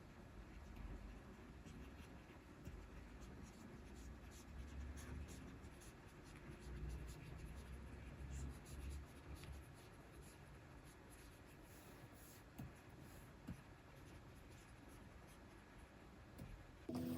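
Soft scratching and light tapping of a stylus stroking across the screen of a Wacom Cintiq 24 Pro pen display, in irregular strokes with small ticks.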